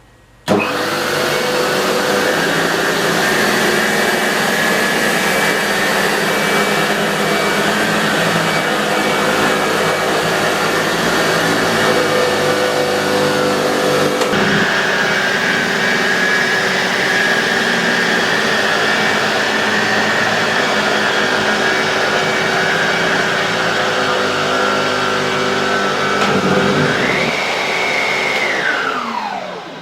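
Vacuum cleaner switched on and run steadily while vacuuming sawdust from a shag rug. Near the end its motor whine rises briefly, then the machine is switched off and winds down with a falling whine.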